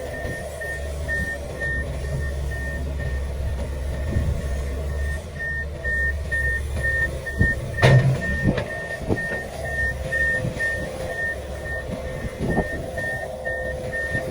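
Komatsu PC500LC excavator's diesel engine running under load while its travel alarm beeps steadily, about two to three beeps a second, as the machine tracks. A sharp metallic clank about eight seconds in.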